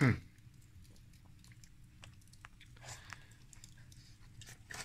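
Faint, scattered small clicks and soft rustling from close handling, over a faint steady low hum of the room.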